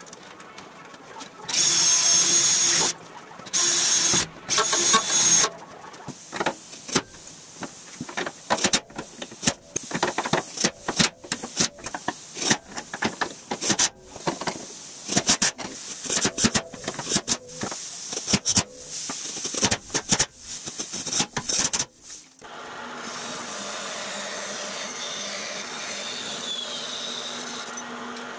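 A cordless drill runs in three short bursts with a high whine. Then a hand saw cuts metal tubing in quick, uneven strokes. About three-quarters of the way in, a stationary shop machine's motor starts and runs steadily.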